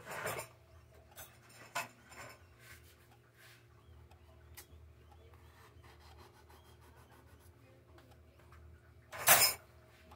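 A crusty bread roll being handled, its crust rubbing and crackling in short scattered bursts, with a louder burst about nine seconds in.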